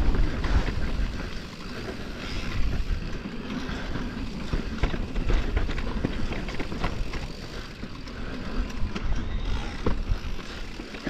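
Electric mountain bike riding down a dirt trail: tyres rolling over the ground and the bike rattling and knocking over bumps, with wind rushing on the microphone, strongest in the first second or so.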